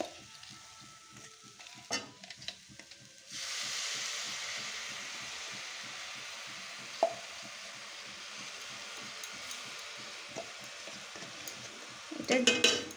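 Liquid date-palm jaggery hitting hot grated coconut in a steel wok: a steady sizzle starts suddenly about three seconds in and slowly eases off. A few sharp clicks of the metal spatula or jar against the pan come before it and once in the middle.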